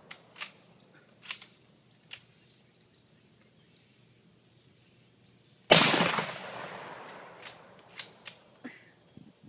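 One loud gunshot a little over halfway through, with a long fading echo, fired into a hot water heater to punch leaks in it. Several faint clicks come before and after it.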